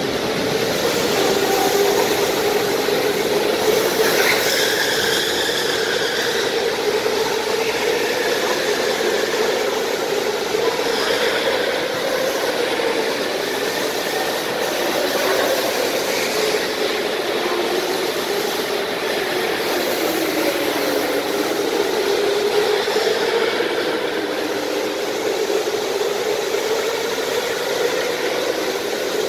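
Go-karts driving laps on an indoor track, a steady motor drone whose pitch slowly wavers up and down as they run.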